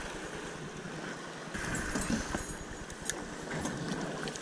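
Fishing reel being cranked to bring in a hooked fish: a faint high whir with a few light clicks, over a steady hiss of wind and water.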